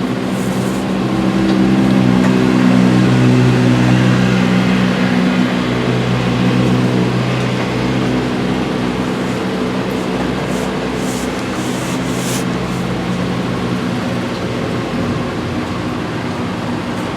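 An engine running steadily, loudest a few seconds in and then easing off a little.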